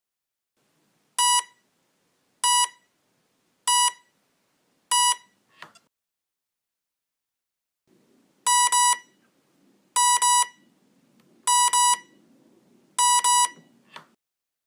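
Hitec Energy Sport brushless ESC programming tones. First a single beep is repeated four times, signalling the Automatic (7°–30°) timing option. After a pause a double beep is repeated four times, signalling the Low (7°–22°) timing option. Each set ends with a faint click.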